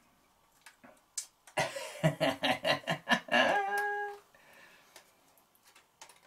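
A man laughing: a run of quick voiced pulses for about two and a half seconds, ending on a held higher note, after a few faint clicks.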